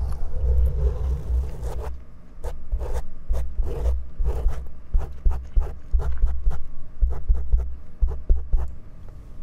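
Fingers rubbing and scratching the foam windscreens of a pair of stereo microphones held close: a low handling rumble in waves, with a rapid run of short, crackly scratches from about two seconds in.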